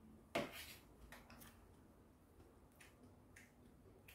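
Quiet eating sounds: one sharp click about half a second in, then a few fainter clicks, from eating with metal chopsticks and a spoon at a stainless steel compartment tray.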